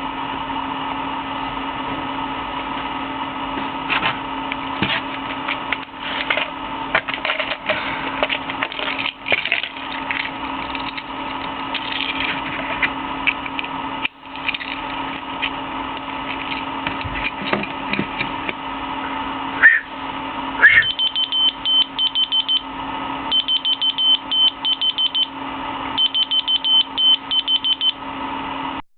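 Two short rising whistles, then a whistle-activated key finder keychain answering with rapid, high-pitched beeping in three bursts of about two seconds each. A steady electrical hum and some handling clicks sit underneath, the clicks in the first half.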